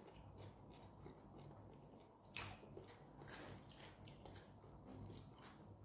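Faint eating sounds: chewing and soft, wet clicks of food picked up with the fingers, with one sharper click about two and a half seconds in.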